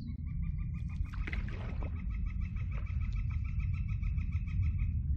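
A woodpecker giving its laughing call: a long, rapid series of repeated notes that runs for about five seconds and stops just before the end.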